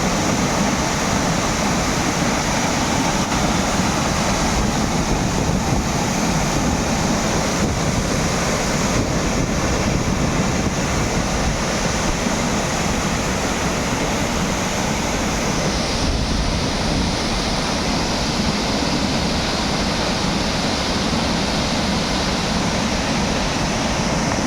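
Wah-Kaba waterfall pouring steadily, a loud, unbroken rush of falling water.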